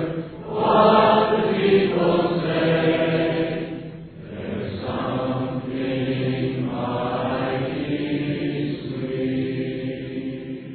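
A girls' choir singing a slow gospel chorus together in long held phrases, with brief breaths between the phrases.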